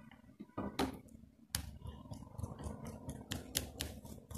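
Handling noise of a small plastic screw-terminal connector block as a wire is pushed in and a small screwdriver works its terminal screw: a string of sharp, irregular clicks over soft rustling.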